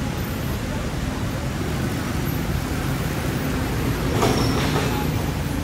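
Steady rumble of street traffic and vehicle engines, with a few clattering sounds about four seconds in.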